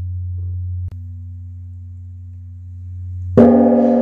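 Large bronze Korean temple bell (beomjong) humming low as its previous stroke dies away, then struck again about three and a half seconds in, ringing out with a deep tone of many layered pitches. There is a faint click about a second in.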